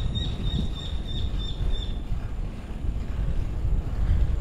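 Wind buffeting the microphone during a bicycle ride, a steady low rumble. For the first two seconds a high, thin tone pulses about four times a second, then stops.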